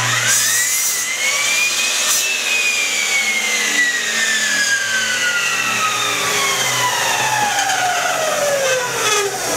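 Old Craftsman electric cutoff saw's motor whining up to speed for about two seconds, then winding down with a slowly falling whine as the blade coasts to a stop.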